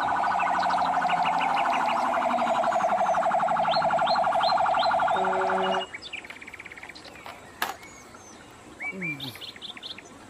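Fire truck siren: a steady, rapidly pulsing siren that cuts off suddenly about six seconds in, with a lower horn note joining just before the end. Afterwards, birds chirp.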